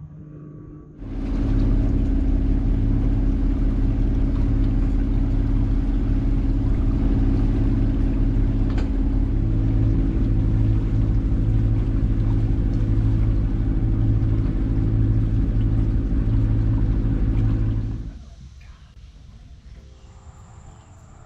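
Sailboat's inboard engine running steadily under way, a loud, even low drone that starts abruptly about a second in and cuts off near the end.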